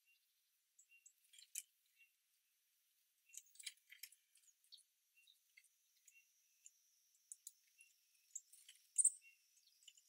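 Faint, high, thin calls of small garden birds at a feeder: short chips repeating every half-second or so, mixed with scattered sharp ticks, and one louder high chirp about nine seconds in.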